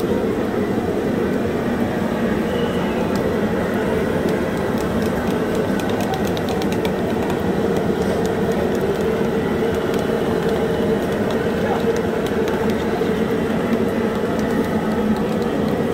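Steady din of a busy street-food stall: crowd hubbub and batter frying in a large kadhai of hot oil. A run of light clicks comes about six to seven seconds in.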